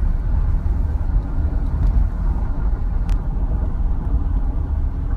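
Steady low rumble of a car interior, engine and road noise picked up by a phone microphone. A faint click comes about three seconds in.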